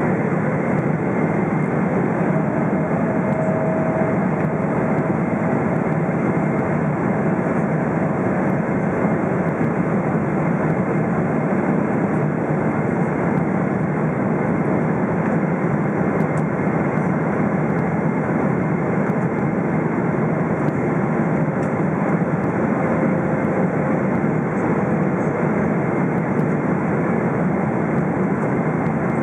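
Steady rush of engine and airflow noise inside the cabin of a Boeing 777-300ER descending on approach, even in level throughout.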